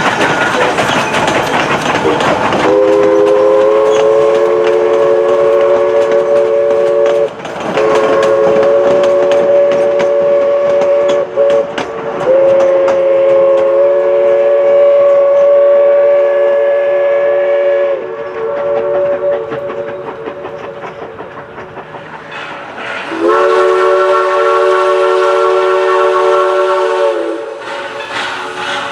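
Steam locomotive chime whistle, a chord of several tones, blown in the grade-crossing pattern: long, long, short, long. Another long blast follows a few seconds later, over the running noise and clickety-clack of the moving train.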